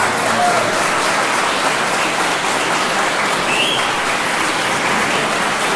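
Crowd of guests applauding steadily after a keyboard performance ends.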